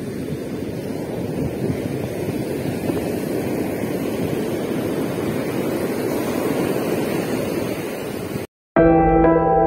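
Surf breaking and washing up a sandy beach, with wind buffeting the microphone, a steady rushing sound. About eight and a half seconds in it cuts off suddenly, and soft music with long held notes begins.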